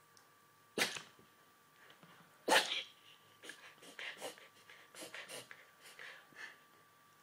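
A dog sneezing: two sharp, loud sneezes about a second in and again at two and a half seconds, followed by a run of about ten shorter, softer bursts of breath.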